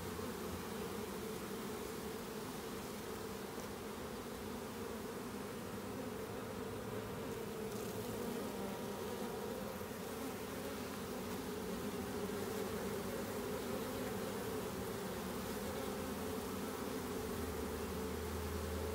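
Swarm of honey bees buzzing steadily as it is hived, the hum getting a little louder about two-thirds of the way in.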